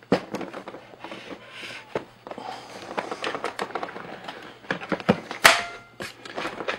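Irregular plastic clicks and knocks of a laptop's underside being handled as its battery is taken out, with a louder, sharper clack about five and a half seconds in.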